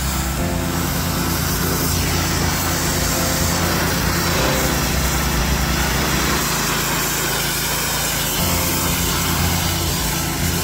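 Small gasoline engine of a pressure washer running steadily under load, with the high hiss of the water jet on a concrete driveway.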